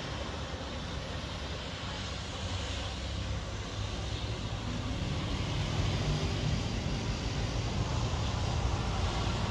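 Jet ski engine droning steadily, growing a little louder about halfway through as the craft turns at speed.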